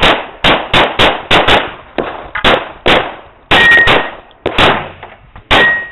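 .40-calibre 2011 pistol fired in quick strings, about a dozen shots with short pauses between pairs. A steel target rings briefly after some of the hits, about halfway through and again near the end.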